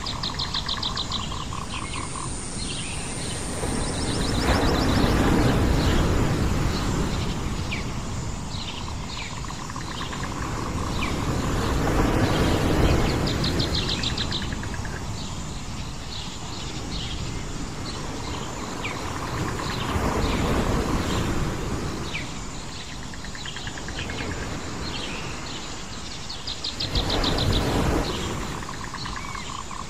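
Sea waves washing onto a shore, swelling and falling back about every seven or eight seconds, with birds chirping and trilling over them.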